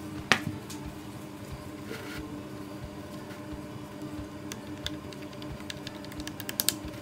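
Cardboard jigsaw puzzle pieces being handled and broken apart on a table: scattered light clicks and taps, a sharper click about a third of a second in and a quick cluster near the end, over a steady low hum.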